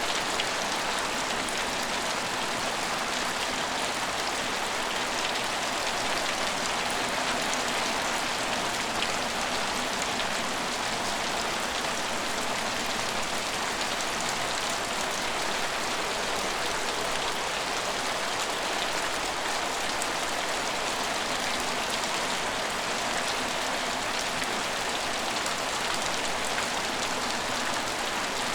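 Steady rain falling, an even hiss of many small drops with no change in strength.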